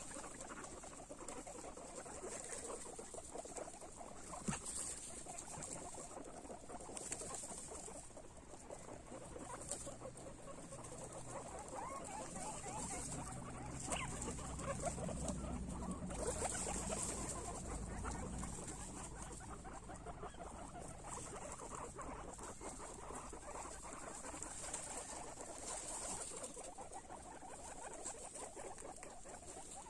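Guinea pigs eating: a steady, busy crackle of crunching and munching.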